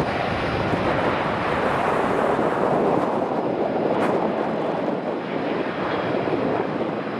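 Jet engines of an Airbus A320-family airliner at takeoff thrust as it lifts off and climbs away. The jet noise is steady and rushing, then eases slightly after about five seconds.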